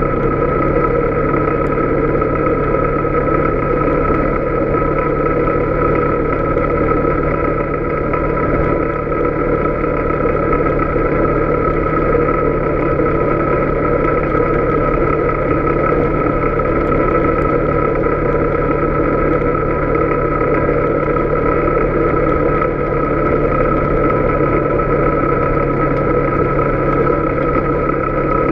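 Polaris Sportsman 570 ATV engine running at a steady pace as the quad rolls along a gravel road, with a constant drivetrain whine and no change in speed.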